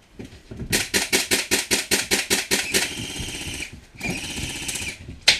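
Airsoft electric gun (AEG) firing: a quick string of single shots at about six a second, then two short full-auto bursts with a buzzing gearbox, and one last sharp crack near the end.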